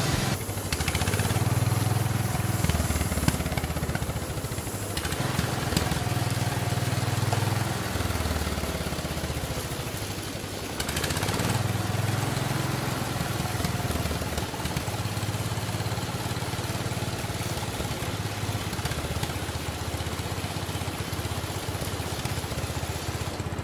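A motor running steadily, with a low drone that swells and fades every couple of seconds.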